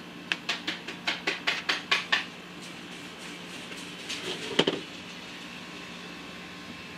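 Quick series of metal clicks from hand tools working a piston ring compressor on a Chevy 350 piston: about ten clicks, roughly five a second, then a single louder knock about four and a half seconds in.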